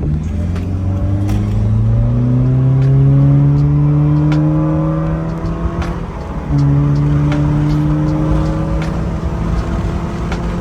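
Subaru Impreza's engine pulling the car away, its pitch rising steadily for about five seconds, dipping briefly, then holding at a steady higher pitch while cruising.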